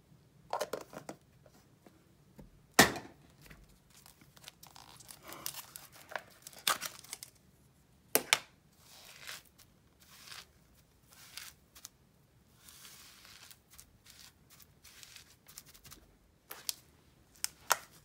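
Slime being scraped and tipped out of plastic tubs into a glass bowl: irregular crackly tearing and scraping, with a few sharp knocks of the tubs against the bowl, the loudest about three seconds in.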